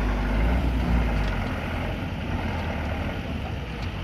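Low, steady rumble of vehicle engines, heaviest in the first second and a half.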